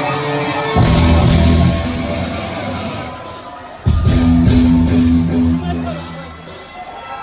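Live rock band playing loud and heavy: big guitar and bass chords hit about a second in and again near four seconds, each left to ring out and fade, with cymbals washing over them.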